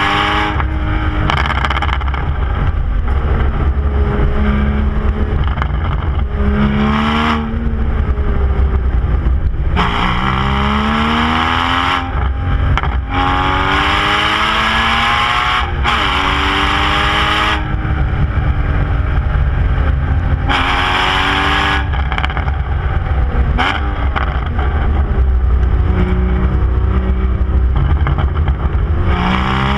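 Porsche Boxster Spyder's 3.8-litre flat-six, heard through its exhaust, accelerating hard through the gears. The pitch climbs and breaks off at each gear change several times, and falls between pulls as the engine slows on the overrun.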